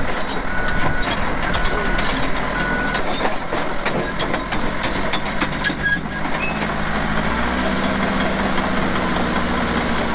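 Heavy diesel machinery running, with a backup alarm beeping about once a second for the first three seconds. Then the engine revs up, its pitch rising about seven seconds in, as it takes up the load of pulling the stuck tractor.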